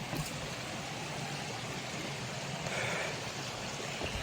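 Steady rush of water from a waterfall cascading over rock, swelling slightly about three seconds in.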